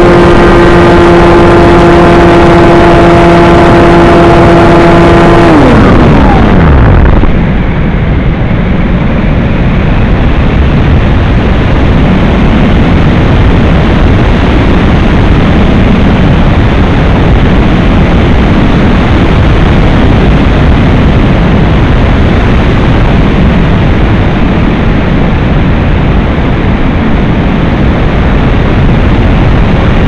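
Motor and propeller of a model thermal glider running at a steady pitch, then switched off about five and a half seconds in, its whine falling away over a second or so. After that only a loud, steady wind rush over the onboard camera's microphone as the model glides.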